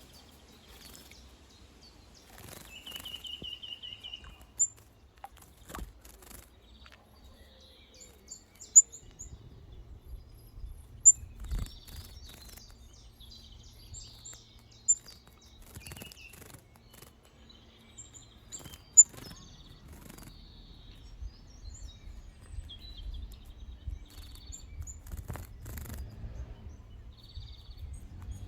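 Small wild birds chirping with short, sharp calls scattered throughout and a brief trill about three seconds in, mixed with repeated short bursts of splashing and wing-fluttering as they bathe in shallow water.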